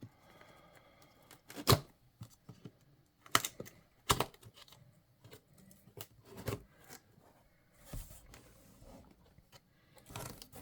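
Cardboard box being opened by hand: several sharp knocks and snaps of the cardboard and packing, about four loud ones, with quieter scraping and rustling between.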